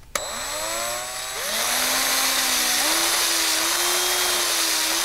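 Hand drill turning a taper reamer in the pin hole of a low-profile AR-15 gas block. The motor starts suddenly with a rising whine, eases briefly about a second and a half in, then runs steadily, its pitch stepping up twice.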